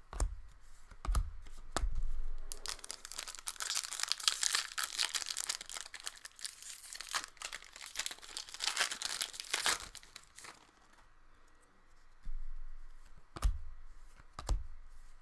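Hockey card pack wrapper being torn open and crinkled: a dense crackling from about two seconds in to about ten seconds in. A few dull knocks come before and after it.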